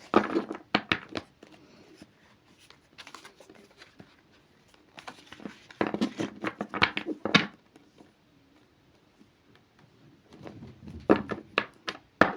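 Tarot cards being shuffled and handled, in four bursts of quick flicks, snaps and rustles with short pauses between.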